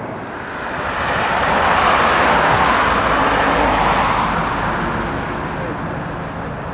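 Jet airliner passing close by: a rushing engine noise that swells over about two seconds, peaks, then fades away.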